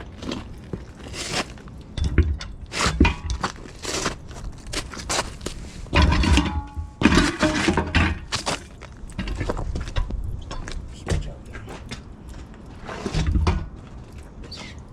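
Steel tire-changing tools knocking, scraping and clanking against a semi-truck tire and its steel rim as a bead breaker is set in place, with repeated sharp knocks and a brief metallic ring about six and a half seconds in.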